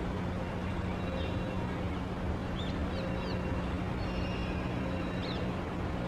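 A steady low mechanical hum and rumble, like a running engine, with a few faint, short high-pitched bird chirps about halfway through and again near the end.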